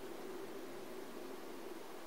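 Faint steady hiss with a low hum that fades away.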